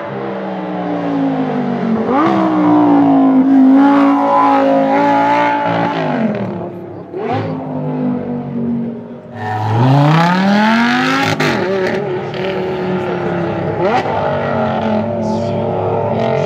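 Lamborghini Gallardo LP570 Performante's V10 through a Larini aftermarket exhaust, revving up and dropping back several times as the car drives by and pulls away. Its biggest rise in revs comes at about ten seconds, followed by a sharp crack.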